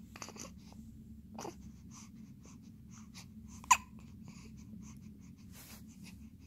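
A one-month-old baby hiccuping: one short, sharp hiccup with a small squeak a little past the middle, among faint breathing and small mouth sounds.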